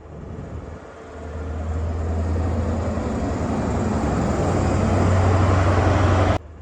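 A train approaching and running past at speed: a rushing noise over a deep rumble that builds from about a second in and keeps getting louder, then cuts off suddenly near the end.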